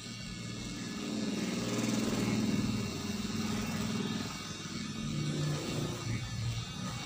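A motor vehicle engine passing, swelling from about a second in and peaking around two to three seconds, with a second swell near five to six seconds, over guitar background music.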